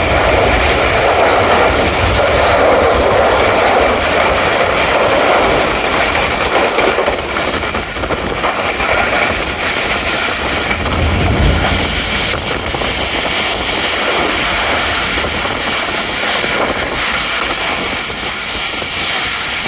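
Express passenger train running at high speed: a steady, loud rush and rumble of the wheels on the track, with scattered low knocks.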